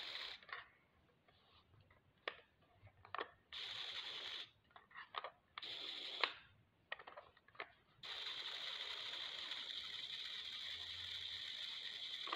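Toy remote-control car's small electric motors whirring in short bursts that start and stop abruptly as the remote is worked: two bursts of about a second, then a steady whir of about four seconds near the end, with scattered light clicks in between.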